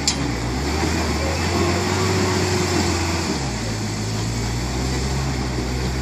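Toyota pickup's engine running under load at low speed as the truck crawls over a rock ledge. Its note shifts about halfway through. A sharp click comes right at the start.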